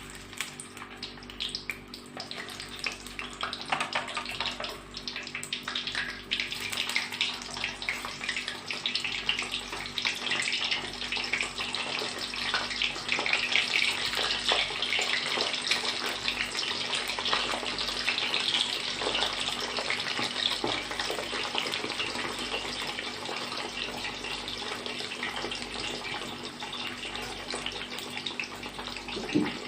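Kofta frying in hot oil in a pan: a steady crackling sizzle that grows louder several seconds in.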